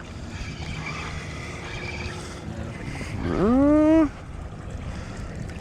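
Wind and water noise on a small boat, with a loud wordless rising exclamation from a person about three seconds in, lasting just under a second.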